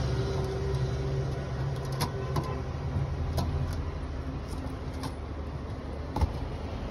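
A motor vehicle's engine running nearby with a low steady hum that eases off over the first couple of seconds. A few light clinks and knocks come through as carrots are rinsed in a steel plate and set down.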